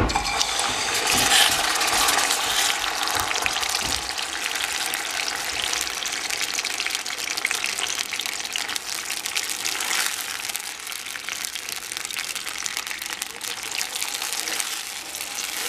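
Cooked beans and their broth ladled into hot pork lard in a pan, starting with a sudden loud sizzle as they hit the fat. They then fry with a steady crackle and spatter.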